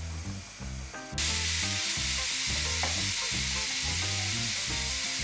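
Chunks of young jackfruit tipped into a hot frying pan of onion and spices. A loud, steady sizzle of frying starts suddenly about a second in.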